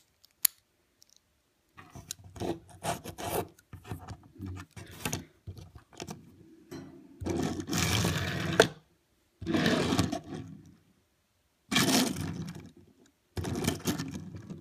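Hot Wheels Snap Rides Boneshaker die-cast toy car rolled back and forth across a wooden tabletop. There are about five passes, each a second or so of scraping wheel noise, starting about two seconds in.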